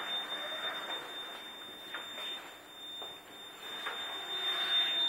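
A steady high-pitched electronic whine, over the faint rolling noise of a small wheeled robot and a few footsteps on a hard floor.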